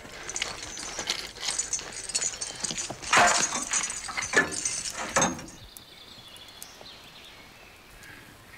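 Fight sounds of a spiked flail swung against a round shield: a run of knocks, clatters and metallic jingling, loudest about three to five seconds in, then dying down to a quieter stretch.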